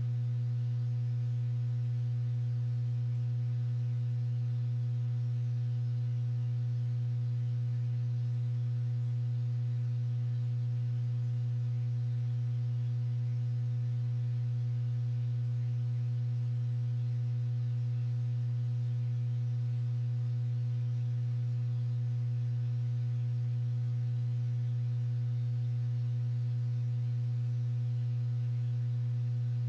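A steady, unchanging low electronic hum: a single low tone with faint overtones, with no clicks or tool sounds over it.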